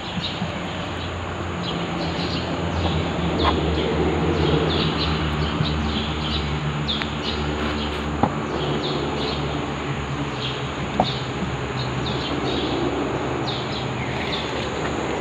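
Small birds chirping repeatedly, many short calls, over a low steady hum that eases off about eight seconds in and a constant high-pitched whine.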